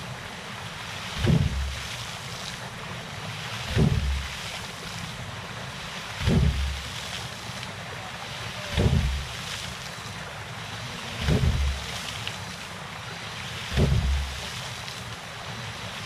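Hydraulic ram pump with 4-inch waste valves cycling: a heavy thump about every two and a half seconds as the waste valve slams shut and the water-hammer drives water up the delivery pipe, six times over a steady rush of water.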